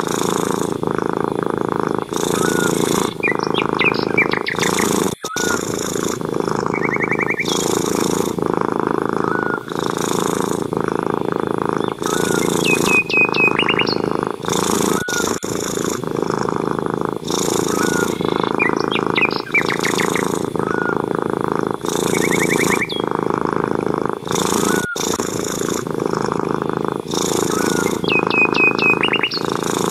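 Cat purring loudly and steadily in even pulses, with birds chirping and trilling now and then.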